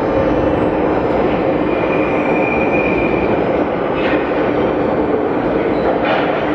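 Russian-built series 81 metro train (81-572/81-573 cars) approaching through the tunnel and running into an underground station: a steady rumble, a brief high whine about two seconds in, and sharp clicks from the wheels about four and six seconds in.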